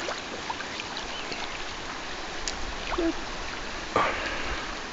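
River water flowing steadily, a constant rushing, with a sudden louder rush about four seconds in.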